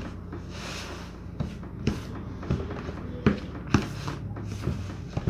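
A metal spoon stirring and scraping cornmeal dough in a plastic bowl, with several short knocks of the spoon against the bowl at irregular intervals.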